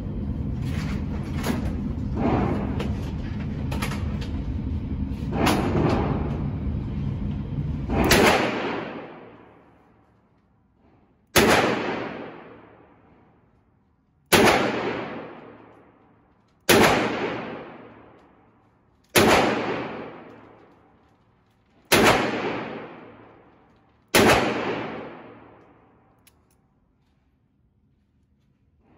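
A Taurus .357 Magnum revolver firing seven single .357 Magnum shots, the first about 8 s in and the rest 2 to 3 s apart. Each crack trails off in a long echo off the walls of an indoor range.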